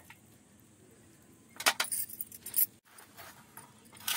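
Short bursts of rustling and light clinking as hands handle leaf-wrapped steamed eggs on a steel plate: a cluster about a second and a half in, and a louder one at the end.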